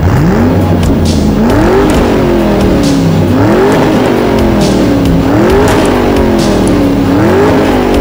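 Car engine revving over background music with a beat. The pitch climbs quickly and then slides down, over and over about every two seconds, like repeated gear changes. It starts suddenly.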